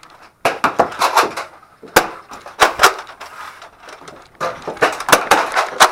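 A run of sharp knocks and clacks of hard objects, coming in clusters, with one louder single knock about two seconds in.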